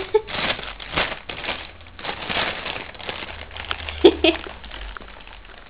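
Thin plastic carrier bag rustling and crinkling irregularly as a cat moves around inside it.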